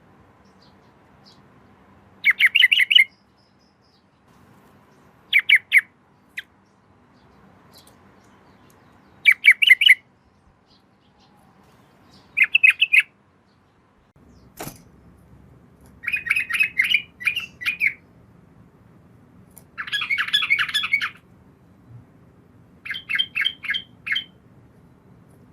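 Sooty-headed bulbul (trucukan) singing: about seven short phrases of quick, bubbling, rolled notes, repeated every few seconds. A single sharp click comes about midway.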